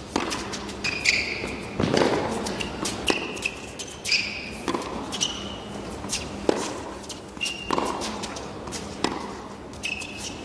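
Tennis rally on an indoor hard court. The ball is struck by rackets and bounces again and again, with short high sneaker squeaks on the court surface between the hits, in a large hall.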